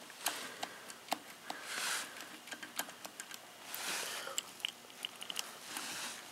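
Holley four-barrel carburetor being handled on a workbench: scattered sharp clicks and light metal taps from its body and throttle linkage, with a couple of soft rustling swells about two and four seconds in.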